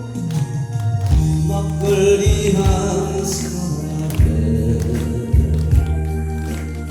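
Music from a song's backing track, with a bass line, a drum beat and sustained melody notes, between the singer's sung lines.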